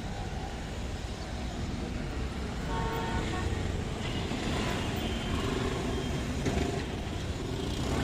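Wind buffeting a wired earphone's microphone on a moving motorcycle, a dense steady rumble mixed with road and traffic noise.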